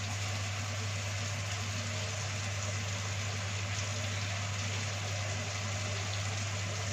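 Steady kitchen background noise: an even hiss over a constant low hum, with the gas stove lit under the wok.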